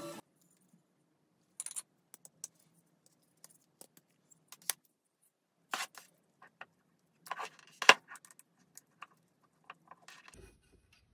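Scattered small clicks and taps of parts being handled: a motor pressed into a 3D-printed plastic mount and a screwdriver worked against it, with the sharpest click about eight seconds in.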